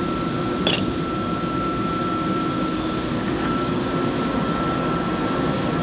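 Steady mechanical drone with a thin, constant high whine running through it, and a single brief click about two-thirds of a second in.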